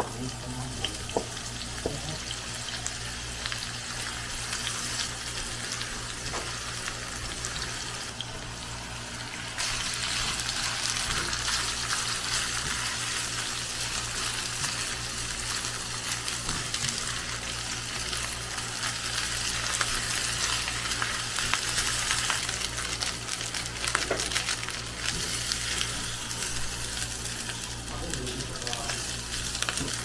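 Chopped leeks, then egg and rice, sizzling in hot oil in a pan, with the scrape and tap of a silicone spatula stirring them. The sizzle gets louder about ten seconds in.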